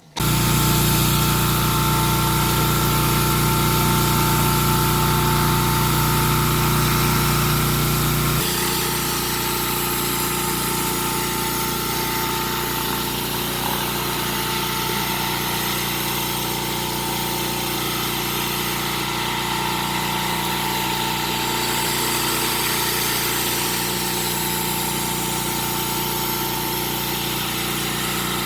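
Pressure washer running steadily: the engine's hum under the hiss of high-pressure water from a spinning surface cleaner scrubbing a driveway. About eight seconds in the deep hum drops away and the sound gets a little quieter, then runs on unchanged.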